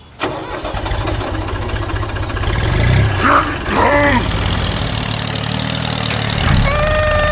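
Small vehicle engine starts abruptly and runs with a rapid, even chugging. A short steady tone sounds near the end.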